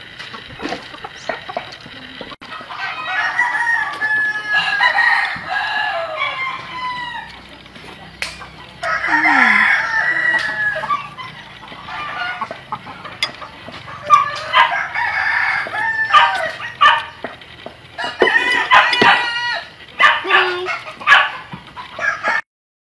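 Roosters crowing again and again, some crows overlapping, with chickens clucking between them. The sound cuts off suddenly near the end.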